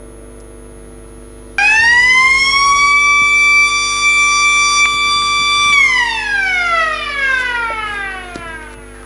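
A siren's wail starts suddenly about one and a half seconds in, climbs quickly to a held high tone for about four seconds, then glides steadily down and dies away near the end.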